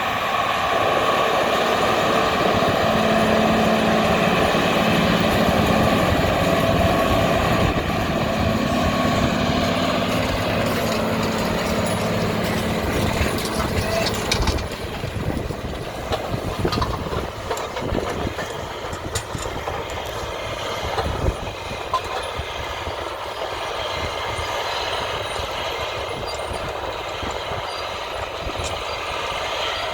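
Big diesel farm tractor engines running: a steady engine drone for the first half, then from about halfway a rougher, clattering mix with a few sharp knocks.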